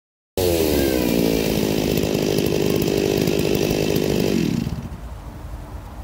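Gas chainsaw running at full throttle in wood, its pitch dropping as the chain bites into the cut, then winding down as the throttle is let off about four and a half seconds in.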